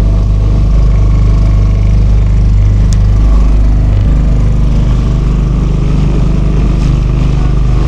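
Small boat outboard motor running steadily at low speed, its pitch shifting slightly about three seconds in.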